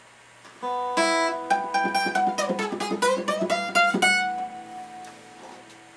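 Acoustic guitar playing a song's introduction: a chord, then a run of single picked notes going down and back up, ending on a chord that rings and fades.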